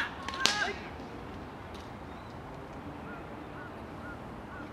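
Baseball field between pitches: a shout trails off, then one sharp smack about half a second in, then quiet open-air background with a few faint short chirps.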